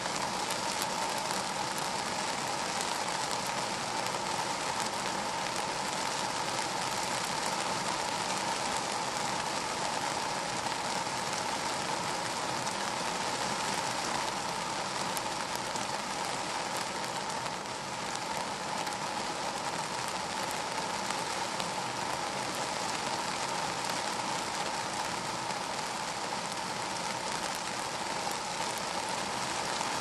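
Rain falling on a car's roof and windows, heard from inside the car: a steady, dense patter of drops.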